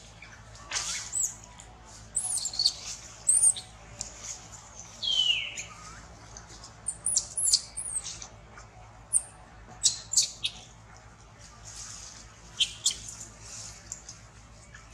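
Baby macaque giving repeated high-pitched squeals and short screams in irregular bursts, with one longer cry sliding downward about five seconds in: a distressed infant crying.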